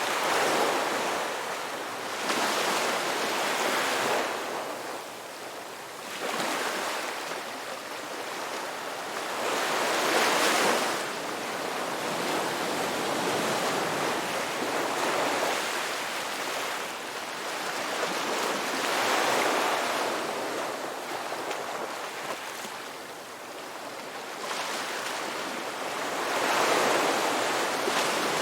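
Ocean waves breaking and washing on a shore, a continuous surf that swells and ebbs every few seconds, with a stronger wave about ten seconds in and another near the end.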